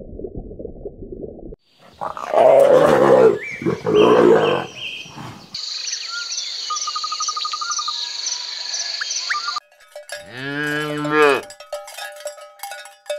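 A string of short animal sound clips: a low rumble, then two loud growls, then a high steady buzz with regular ticks, then a Highland cattle calf mooing once.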